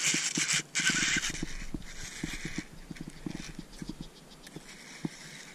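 Splashing and sloshing in shallow marsh water, loudest for the first two and a half seconds and then fading, over soft irregular knocks about three or four a second.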